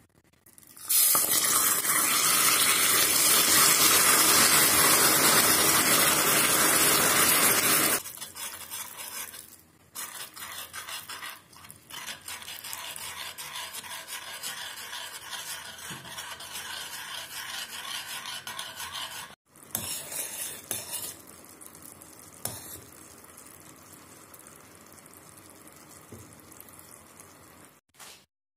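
Liquid poured into hot caramelized sugar in a stainless steel saucepan, hissing and sizzling loudly for about seven seconds. Then a spoon stirs and scrapes in the pan as a cornstarch mixture is poured into the caramel, more quietly.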